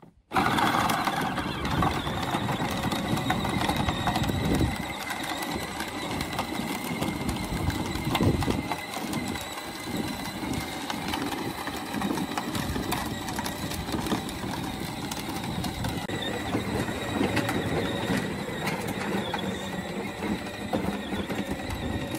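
A small vehicle rolling along steadily, its motor giving a continuous whine over the rough rumble and crunch of wheels on gravel and dirt.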